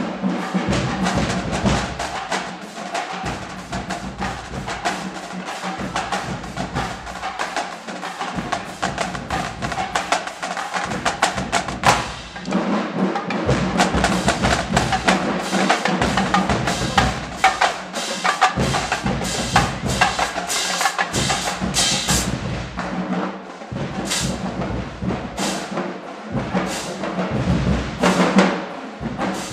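Marching band drumline playing a cadence: rapid snare drum strokes and stick clicks over bass drums hitting in regular groups.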